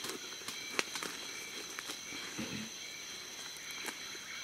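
Sticks and leaves crackling and snapping with scattered sharp clicks as they are bundled by hand into a leaf-wrapped bee smoker, over a steady high-pitched insect drone.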